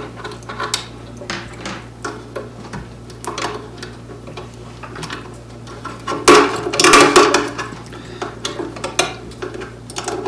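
Small steel chain and quick-connect link on a body-grip trap clinking and clicking as they are hooked together by hand, with a louder flurry of metal clatter about six seconds in.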